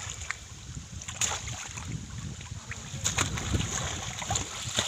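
Wind rumbling on the microphone, with scattered light taps and wet clicks.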